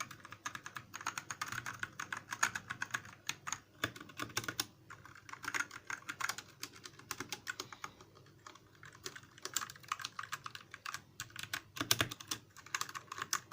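Typing on a Royal Kludge RK61 60% mechanical keyboard: quick, irregular key clicks several a second, with brief pauses and a couple of heavier, deeper keystrokes near the end.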